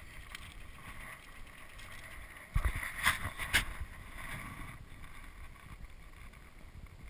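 Wind noise on the camera microphone, with a few knocks and scuffs around three seconds in as the rider gets off the mountain bike and stands it up.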